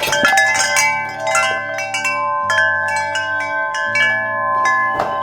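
Large aluminium tubular wind chime (Nature's Melody Aureole Tunes, six tubes) ringing as it is jostled: many strikes in quick succession, their clear tones ringing on and overlapping.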